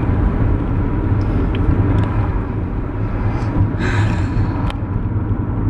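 Steady low rumble of a car's engine and tyres heard from inside the moving car's cabin, with a brief hiss about four seconds in.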